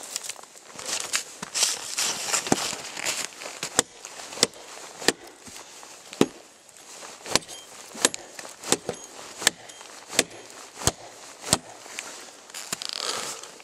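Cold Steel Norse Hawk tomahawk chopping into a dead log, a steady run of sharp strikes about one every two-thirds of a second, with a rustle of snow and branches near the end.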